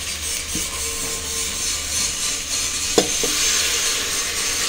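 Potatoes and masala sizzling in an aluminium pressure cooker, with a steel ladle knocking against the pot twice, sharply about three seconds in. Near the end water is poured into the hot masala.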